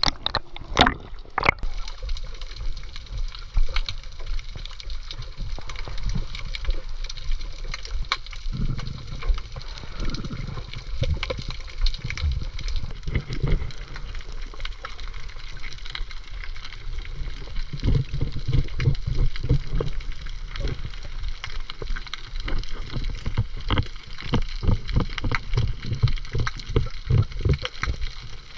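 Water sloshing and gurgling against a small boat, with many irregular knocks and thumps that come thicker in the second half.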